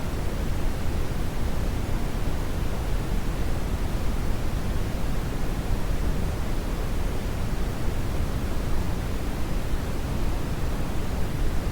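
Brown noise: a steady, even rushing hiss weighted heavily toward the low end, with no changes or events.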